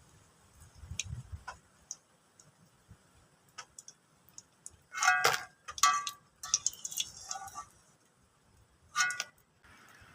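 Spoon clinking and scraping against a plate in irregular sharp clicks, loudest in a cluster about halfway through and once more near the end, with brief ringing from the dish.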